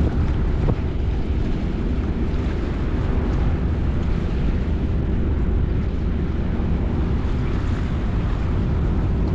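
Steady low rumble of wind buffeting the microphone, over sea water washing against the rocks at the water's edge.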